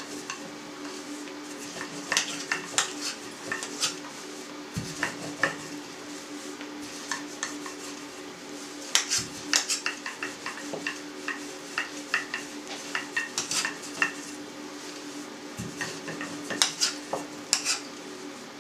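Teaspoon clinking and scraping against a pot and a vareniki mould as filling is scooped and pressed into the mould's hollows, in quick irregular clusters of light taps over a low steady hum.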